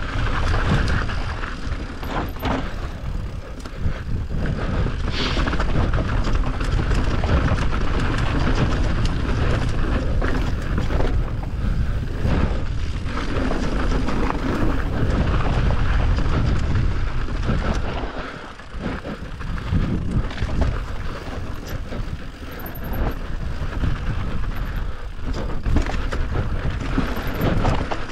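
Enduro dirt bike ridden along a rough trail: the engine runs continuously under varying throttle, with frequent knocks and rattles from the terrain, easing off briefly about eighteen seconds in.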